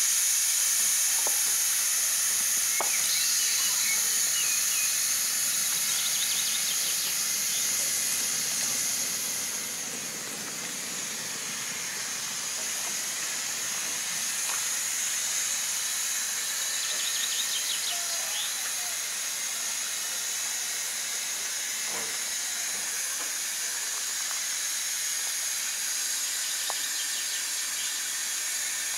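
Steady hiss of steam from a miniature railway steam locomotive, louder for the first nine seconds or so, then easing to a lower, even hiss.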